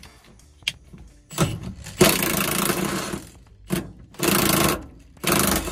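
Impact wrench hammering on tight seat-mounting bolts, running in several bursts, the longest about a second, to break them loose.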